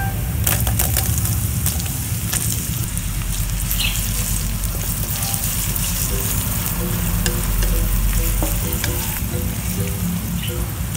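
Chopped red onion and minced garlic sizzling and crackling in hot oil in a stainless steel wok, stirred with a wooden spatula. Many sharp pops rise over a steady sizzle.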